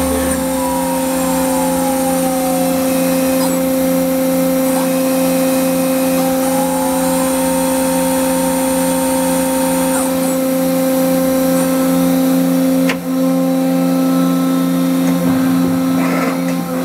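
Mazak Integrex 200 CNC turning and milling center running: a steady machine hum with a high whine that comes and goes, short gliding tones as motor speeds change, and one sharp click about two-thirds of the way through.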